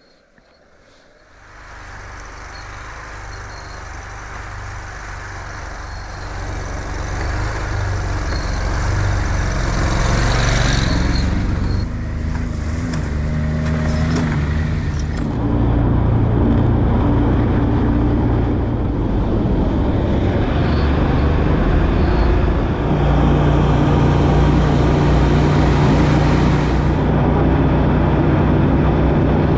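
Engine of an Argo amphibious ATV running as it drives, growing louder over the first several seconds, its note shifting in pitch a few times as it goes.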